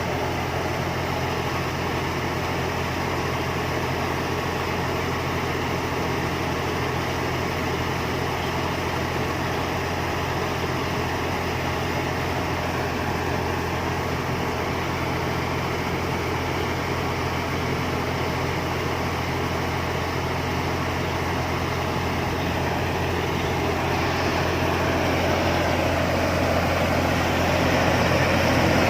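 Combine harvester's diesel engine running steadily with a deep hum, growing louder over the last few seconds.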